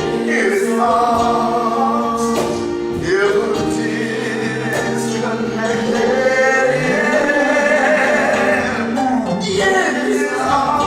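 Live gospel worship song: voices singing a slow, held melody over instrumental accompaniment.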